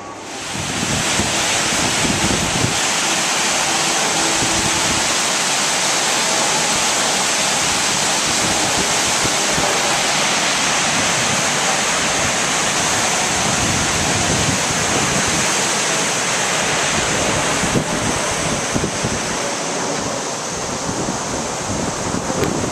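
Water pouring over a river weir: a loud, steady rush that sets in about half a second in, with wind buffeting the microphone.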